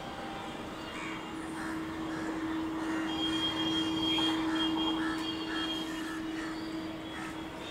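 Electric multiple unit local train running toward the listener, giving a steady electrical hum with a light, regular clatter of wheels over the rails; it grows a little louder toward the middle and eases again near the end.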